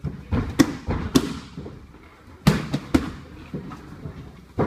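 Strikes landing on hand-held strike pads: a run of sharp smacks in quick combinations, about half a dozen in all, the loudest about two and a half seconds in.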